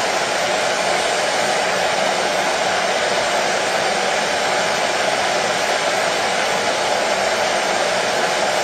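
Hair dryer running steadily: a continuous, unchanging rushing whir, strongest in the middle range.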